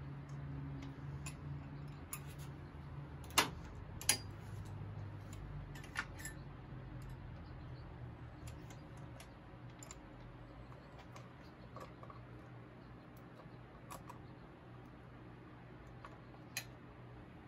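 Scattered light clicks and taps of a chrome S&S teardrop air cleaner cover being handled and fitted by hand against the carburetor. The two sharpest clicks come close together a few seconds in, and a faint low steady hum runs underneath.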